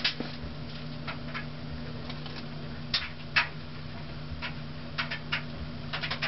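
Vintage Lasko ornate spinner ceiling fan with a steady low electrical hum, and scattered light ticks at irregular intervals.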